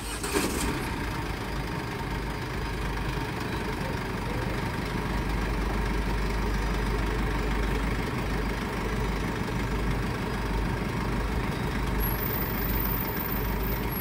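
A vehicle engine idling steadily close by, a low even hum with street noise around it. A short thump comes right at the start.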